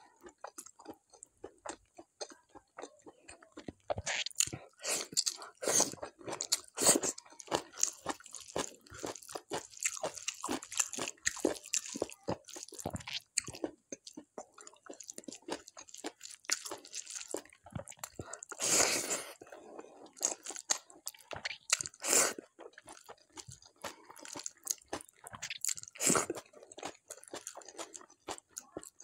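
Close-miked chewing of a handful of rice and bharta with a crisp fried topping, eaten by hand: irregular sharp crunches and wet mouth clicks, with a few louder crunching bites in the second half.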